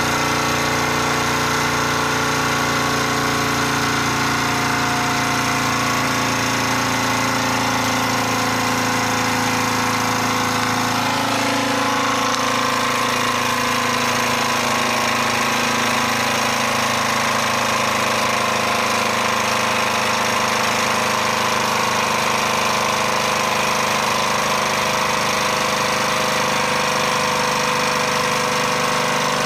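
Wilesco D24 toy steam engine running steadily under steam, an even, continuous mechanical running sound that shifts slightly in tone about eleven seconds in.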